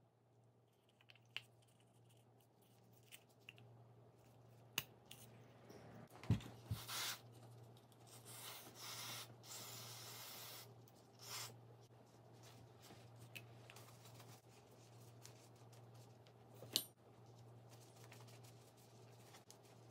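Quiet workbench handling sounds: scattered clicks and light knocks of small parts being set down, with a few seconds of rubbing and rustling, over a low steady hum. The loudest is a dull knock about six seconds in.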